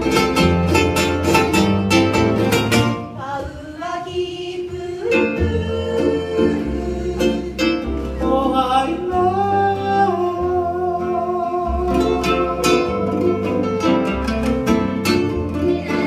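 Live Hawaiian band music: plucked strings and a bass line, with a melody of long, wavering held notes over them.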